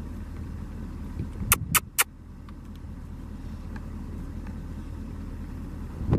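Truck engine running steadily with a low rumble. Three sharp clicks come in quick succession about a second and a half in, and a short thump near the end.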